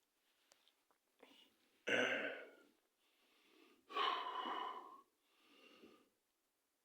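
A man breathing heavily close to the microphone: a sharp breath about two seconds in, a longer one about four seconds in, and a fainter one after it.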